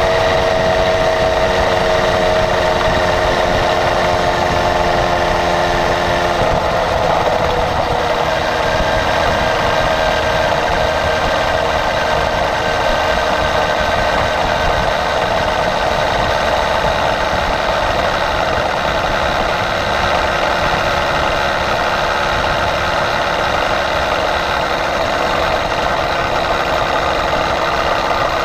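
Small engine of a motorized bicycle running under way, heard close up from the bike it drives. Its pitch eases down a little over the first several seconds, then holds steady.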